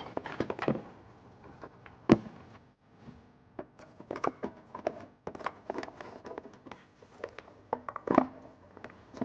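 Trailer wiring harness wires being handled and fed down through a car's rear bumper: irregular light clicks, taps and rustles, with a sharper knock about two seconds in.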